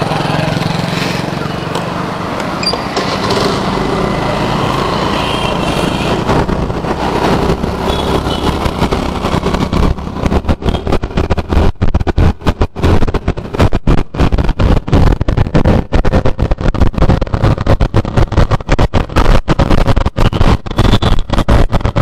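TVS Jupiter scooter's single-cylinder four-stroke engine running as the scooter moves off. About ten seconds in, heavy wind buffeting on the helmet-mounted microphone takes over as it rides along the road, fluttering loudly and unevenly.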